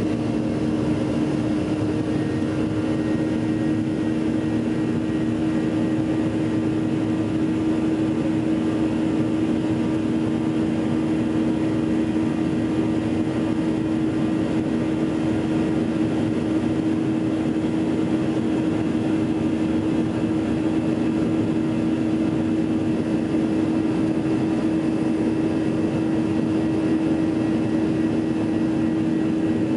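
Steady drone of a Boeing 737's twin jet engines at climb power, heard inside the cabin over the wing: a constant rush of noise with a steady low hum beneath it.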